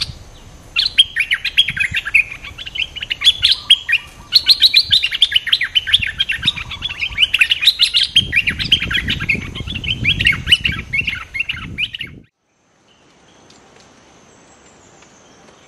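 Bulbuls calling and scolding in rapid, dense chattering phrases at a caged decoy, the decoy bird answering the wild one without pause. A low rustling rumble joins for a couple of seconds in the middle. The calling cuts off abruptly about twelve seconds in, leaving a faint insect hum.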